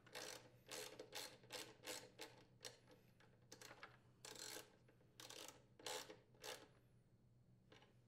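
Faint socket ratchet clicking in a dozen or so short, uneven bursts as a bolt is tightened, then stopping about two-thirds of the way through.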